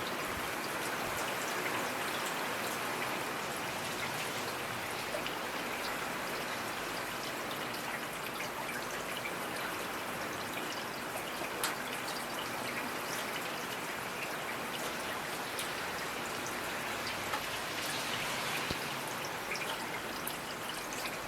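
Steady rainfall, an even hiss with scattered individual drops pattering and ticking.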